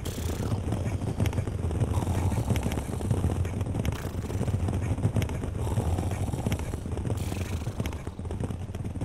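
A horse's hoofbeats as it moves over the ground, as a string of short knocks over a steady low rumble.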